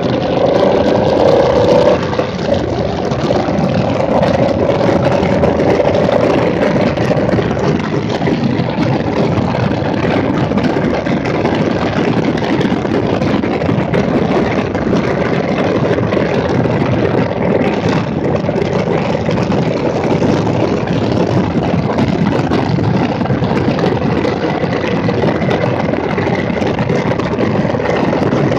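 2017 Triumph Bonneville T100's 900 cc parallel-twin engine running steadily on the move, its note clearest in the first few seconds. Heavy wind rush on the microphone covers it for the rest.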